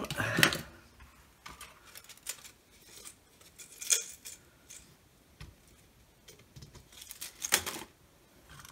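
Scattered clicks and taps of small electronic parts and hand tools being handled and set down on a silicone workbench mat, with a louder cluster of clicks about seven and a half seconds in.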